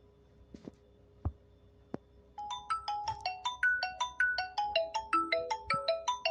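Three faint clicks, then about two and a half seconds in a mobile phone ringtone starts: a quick melody of short, bright notes stepping up and down in pitch, several notes a second.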